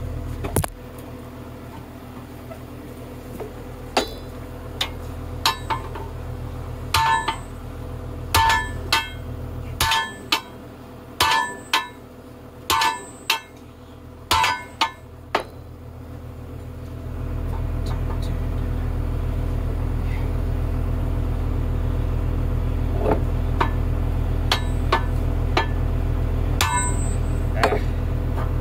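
Sledgehammer blows ringing on the steel track parts of a Case 450 dozer: a dozen or more irregular strikes in the first half, a few more near the end. An engine runs steadily underneath and gets louder about 17 seconds in.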